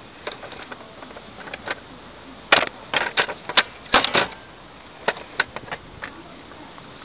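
Plastic toy model being handled, giving a run of irregular sharp clicks and knocks, the loudest and thickest cluster in the middle of the stretch.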